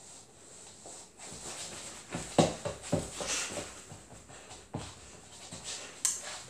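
A person dancing without music: irregular thumps and shuffles of feet on the floor and clothing swishing, the loudest knocks about two and a half and three seconds in.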